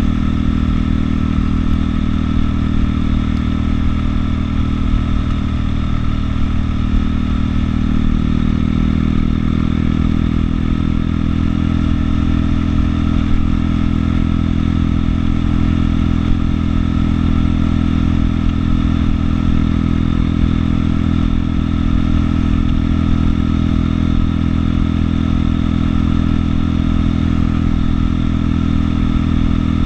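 Buell motorcycle engine running steadily at cruising speed.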